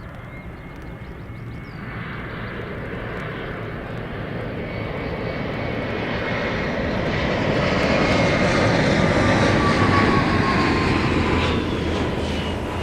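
Airliner's engines passing, swelling steadily to a peak about eight to ten seconds in and then easing off. A whine from the engines falls in pitch as the aircraft goes by.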